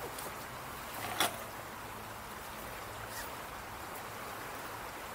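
Glass bottles in a carried bag knocking together in one sharp clink about a second in, with a fainter tick later, over a steady outdoor hiss.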